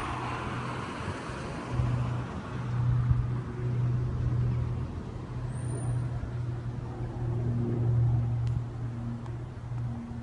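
Low engine rumble of road traffic on the street, swelling and fading in waves.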